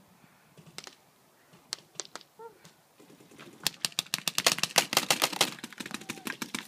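Paintball markers firing: a few single sharp pops, then from about halfway on a rapid string of shots, roughly ten a second.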